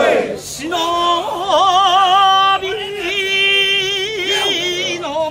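Mikoshi bearers singing a festival chant: men's voices holding long, wavering notes, with two or three voices overlapping.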